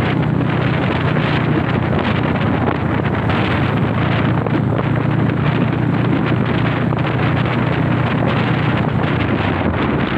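Motorcycle engine running steadily while riding, a constant low hum under heavy wind noise on the microphone.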